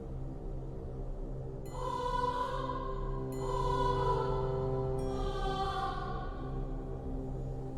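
Eerie horror-style ambient music: a steady low drone with sustained choir-like chords swelling in three times, starting about two seconds in.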